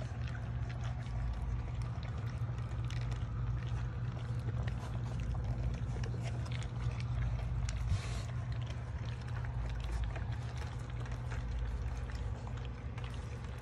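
A litter of Cane Corso puppies, just getting used to kibble, eating together from one bowl: a continuous patter of small chewing, smacking and lapping clicks over a steady low hum, with a brief louder rustle about eight seconds in.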